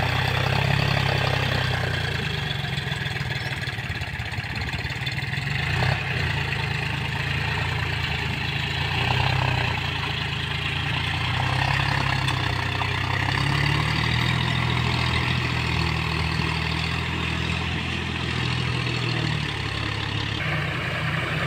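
John Deere tractor's diesel engine running steadily under load as the tractor works through a flooded, muddy paddy field, its pitch rising and falling slightly.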